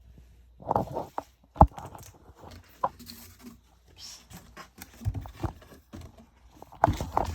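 A parcel's box and packing material being handled and opened by hand: irregular rustling and crinkling with a few sharp knocks, the loudest about one and a half seconds in and another near the end.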